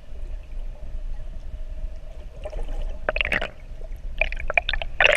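Water gurgling and splashing over a steady low rumble, with bursts of sharp splashing about three seconds in and again near the end.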